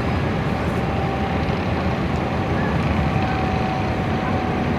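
Steady jet aircraft noise on an airport apron: an even low rumble with a faint steady whine above it.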